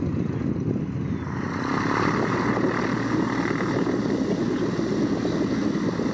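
Piston engine and propeller of a single-engine light aircraft running steadily: first a small plane climbing out after take-off, then, after a cut about a second in, a high-wing plane's engine running close by as it moves along the ground.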